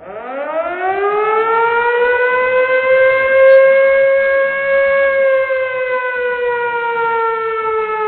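Emergency warning siren starting up after a brief gap, climbing steeply in pitch, holding at its highest around the middle, then slowly falling in one long wail.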